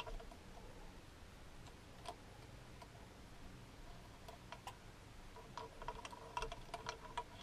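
Faint clicking of a small socket ratchet wrench working a bolt: a few scattered clicks, then a quicker run of clicks in the second half.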